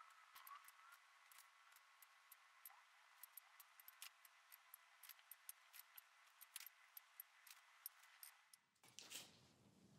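Near silence with faint, scattered small ticks, about two or three a second, and a brief louder rustle near the end.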